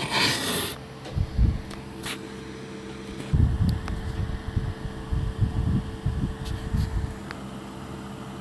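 Handling noise from the recording camera being picked up and moved: irregular low rumbles and knocks, mostly from about three to seven seconds in, over a steady electrical hum.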